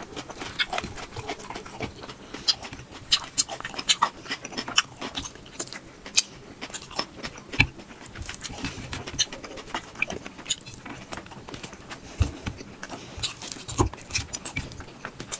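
Close-miked chewing and mouth sounds of someone eating rice and curry: wet smacks and clicks at an irregular pace, with a few low thumps after about twelve seconds.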